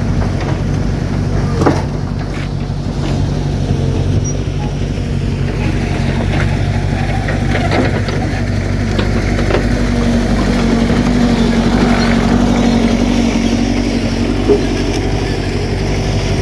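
A backhoe's diesel engine runs steadily, and its speed rises for several seconds past the middle as the machine is worked onto the truck. A few sharp metallic knocks sound over it.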